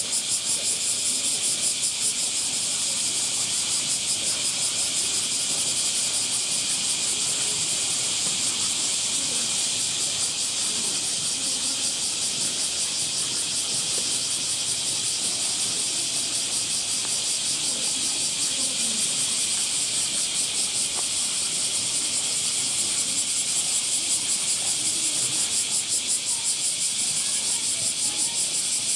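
A steady chorus of cicadas: a dense, high buzz that pulses rapidly and does not let up.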